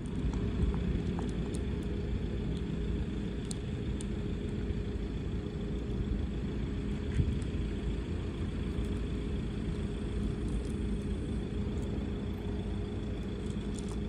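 Steady low rumble of a running motor with a constant hum, a few faint clicks and one brief louder knock about seven seconds in.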